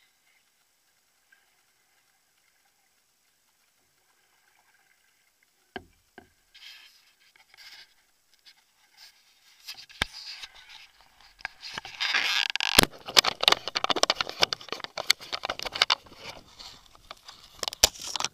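Action camera and its clear plastic waterproof housing being handled: near quiet at first, then a few knocks about six seconds in, building to a busy run of sharp plastic clicks, scraping and rubbing that is loudest in the last third.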